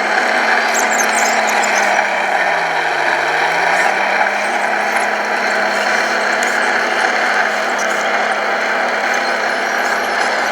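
Radio-controlled model construction machines running: a steady mechanical drone with a low tone that dips in pitch and comes back up about three seconds in, and a few faint high squeaks about a second in and near the end.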